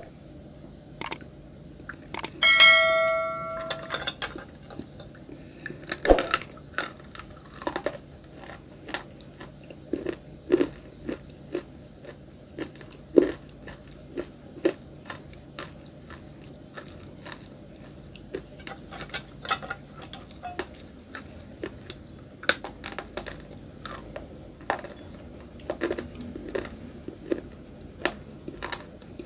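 Close-up crunching and chewing of hard grey clay chunks (nakumat), with many short sharp crunches all through. About two and a half seconds in, the stainless steel bowl holding the chunks gives one loud metallic ring that lasts about a second.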